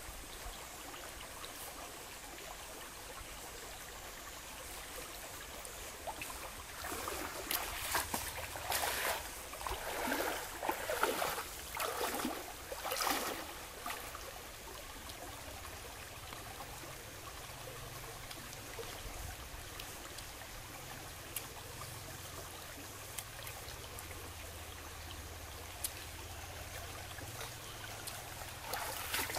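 Shallow stream flowing and trickling over rocks, steady throughout. A run of louder, uneven sounds close by comes for several seconds about a quarter of the way in.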